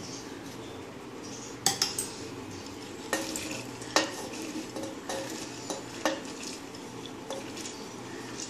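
Soaked split urad dal being tipped and pushed by hand from a bowl into a stainless-steel mixer-grinder jar: wet grains sliding and dropping in, with sharp clinks of the bowl against the steel jar, loudest about two seconds and four seconds in.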